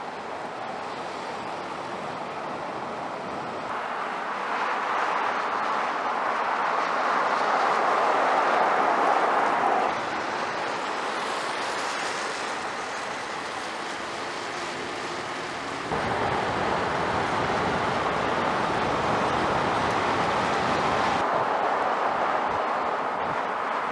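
Ford Maverick pickup towing a travel trailer along a highway: steady tyre and road noise, a rushing hiss with no clear engine note. It swells about four seconds in, drops back about ten seconds in and steps up again about sixteen seconds in.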